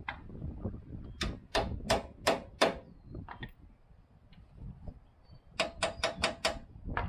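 Hand tools working on a pickup's front suspension: two runs of about five sharp metal clicks, roughly three a second, with a pause between them and one more click near the end.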